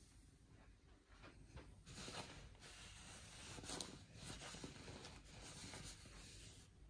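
Faint rustling of pillowcases and bedding as a hand presses and smooths the pillows, in soft, irregular scratchy bursts that pick up about two seconds in.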